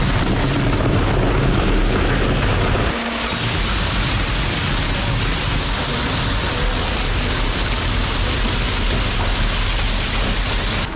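Wet concrete being mixed and poured: a loud, steady churning rush with a low rumble under it that drops out about three seconds in, leaving a brighter hiss.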